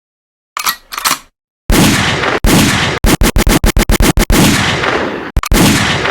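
Edited gunfire-like sound effects. Two short sounds come first, then loud blasts with fading tails, a rapid string of about ten cut-off blasts in the middle like machine-gun fire, and a final blast that fades away.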